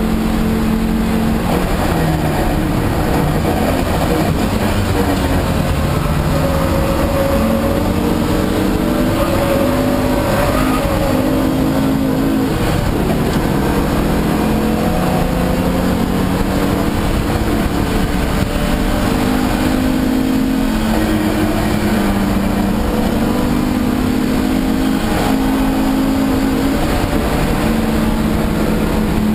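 1987 Audi 4000S's engine under racing load, heard from inside the cabin, its revs climbing and dropping in steps through gear changes and braking, with wind and road noise throughout.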